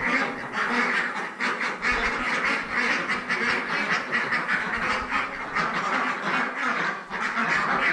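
A flock of about 45 Indian Runner ducks, all females, quacking together without pause in a dense, overlapping chorus.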